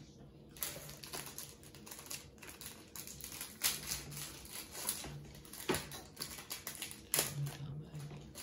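Baseball trading cards being handled and flipped through: a steady run of light clicks and ticks as the cards slide and flick against each other, with a few sharper snaps.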